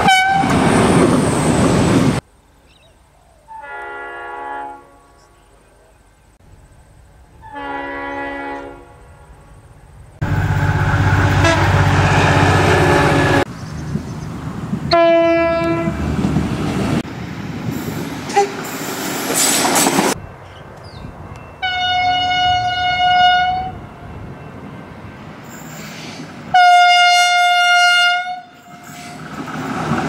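V/Line VLocity diesel railcars sounding their horns in a string of separate blasts, each a steady multi-note chord, with the low rumble of a passing train midway.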